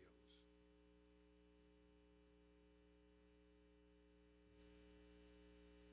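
Near silence with a faint, steady electrical mains hum. The hum steps up slightly in level about four and a half seconds in.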